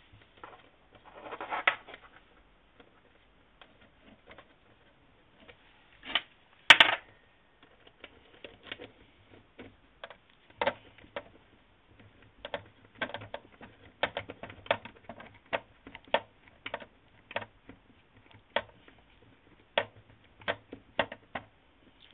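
Small metal tools clicking and ticking as a hex driver and pliers tighten a screw in an RC car's suspension upper link. The ticks come irregularly, with one louder clack about seven seconds in and a denser run of ticks in the second half.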